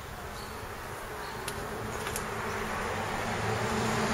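A steady low buzzing drone that grows slowly louder, with a couple of faint clicks.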